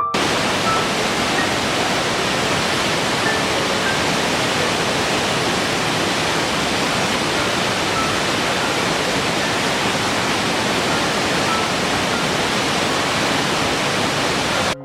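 Steady, loud rush of falling water, like a waterfall, with a few faint short chirps above it. It cuts in and out abruptly.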